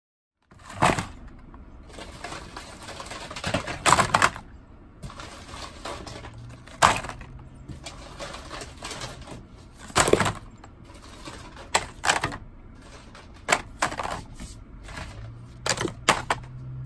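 Plastic-and-cardboard blister packs of lip balm rustling and crinkling as they are shuffled by hand in a pile. Irregular sharp clacks come every second or two.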